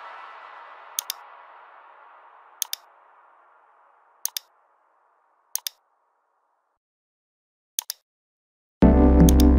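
Computer mouse clicking in quick pairs, five times a second or two apart, over the dying tail of electronic background music. Near the end, loud electronic music with synthesizer starts abruptly.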